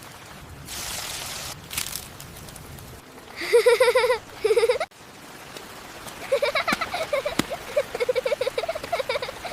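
Rain falling steadily, with a louder gust of rain about a second in. High-pitched, wavering voice-like calls break in twice, first briefly about three seconds in, then in a quick pulsing run from about six seconds on.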